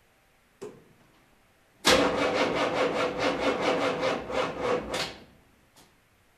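A click, then the starter cranks the 1984 Chevrolet CUCV M1028's 6.2-litre V8 diesel for about three seconds in an even rhythm of about five beats a second. It stops without the engine catching, which the owner puts down to weak batteries.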